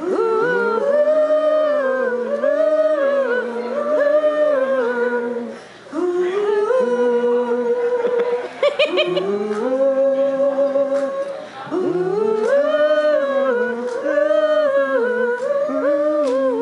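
Woman singing unaccompanied into a handheld microphone: a slow melody of long held notes with no clear words.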